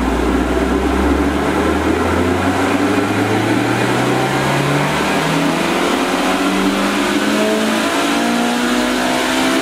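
Toyota Blacktop 20-valve 4A-GE 1.6-litre four-cylinder engine making a full-throttle power run on a chassis dyno through a decat exhaust. The engine note climbs steadily in pitch as the revs rise.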